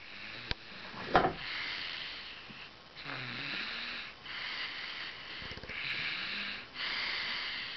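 Snoring from someone asleep in a backpack carrier: wheezy breaths repeating about every second and a half, some with a low rattle. A sharp click just after a second in is the loudest moment.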